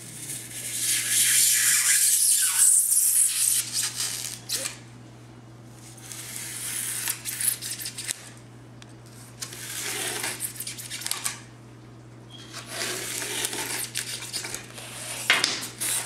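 Utility knife blade drawn along a yardstick through a foil-faced rigid foam insulation board, a crackly scraping rasp. It comes in several passes: a long, loud one at the start, then shorter ones about 7, 10 and 13 to 15 seconds in.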